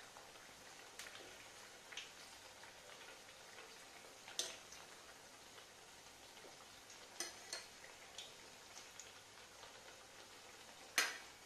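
Faint sizzle of alu vadi deep-frying gently in moderately hot oil in a steel kadhai, with scattered clicks of a perforated steel spoon against the pan as the rolls are turned. The sharpest knock comes near the end.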